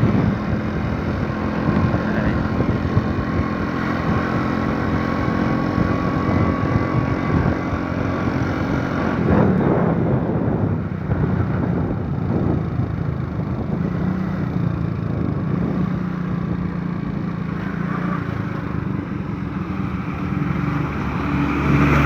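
Motorcycle engine running on the move, with road and wind noise and passing traffic; a louder swell about nine seconds in, like a large vehicle going by.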